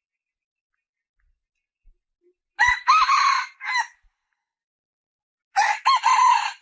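Junglefowl hen calling: two loud calls, about three seconds apart, each made of three or four short notes in quick succession.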